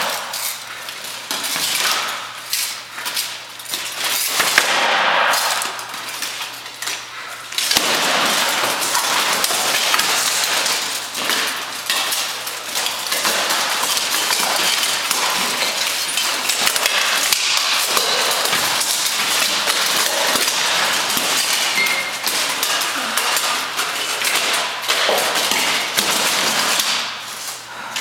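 Steel plate armour and weapons clashing in a full-contact armoured sparring bout. For the first seven seconds or so there are separate blows, and then a near-continuous clanking clatter of steel plates as the fighters close and grapple.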